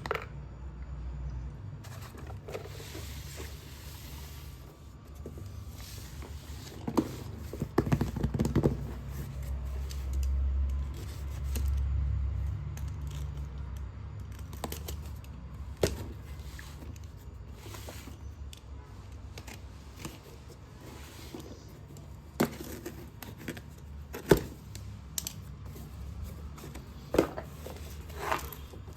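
Slate pencils crunching and snapping close to the microphone: scattered sharp cracks and clicks, several in quick succession at first, then single loud snaps every few seconds, over a low rumble of handling.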